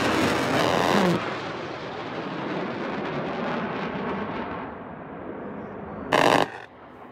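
Fighter jet roaring past overhead, then fading as it flies away, its sound growing duller. A short loud burst of noise comes about six seconds in.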